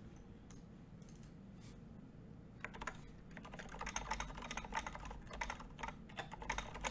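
Typing on an Exent custom mechanical keyboard fitted with 67g Zilents silent tactile switches: a few light taps, then from about two and a half seconds in a fast, steady run of keystrokes.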